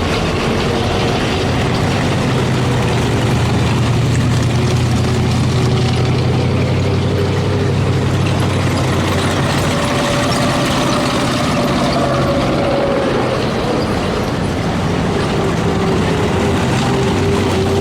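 A column of WW2 Universal Carriers driving past, their Ford V8 engines running with a steady low drone, and steel tracks clattering on gravel.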